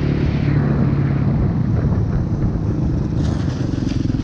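Dirt bike engine running under a helmet camera; its note drops a little about a second in, and from about three seconds in it settles into an even, pulsing lower-revving note as the rider eases off.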